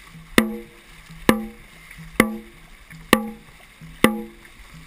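Dragon boat drum struck in a steady beat, five hits about 0.9 seconds apart, each a sharp hit that rings briefly. It calls the paddlers' stroke rate, with water rushing along the hull between beats.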